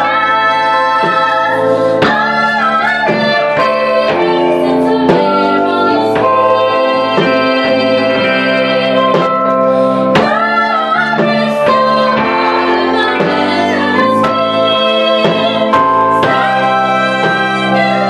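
Live band: several women's voices singing in close harmony over sustained organ-like electric keyboard chords, with drum and cymbal hits scattered through it.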